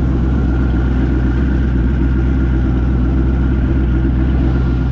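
Mini jet boat's engine running steadily under way, a dense low drone with no change in speed.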